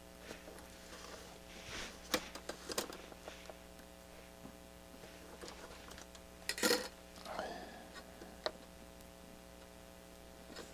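Scattered light clicks and taps of small-parts handling at an electronics workbench, with a louder clatter about six and a half seconds in followed by a short falling squeak, over a steady low electrical hum.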